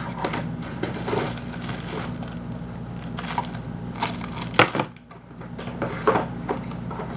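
Cardboard packaging and plastic parts being handled and pulled apart during unboxing: irregular knocks, scrapes and crunches, with one sharp knock about four and a half seconds in, over a steady low hum.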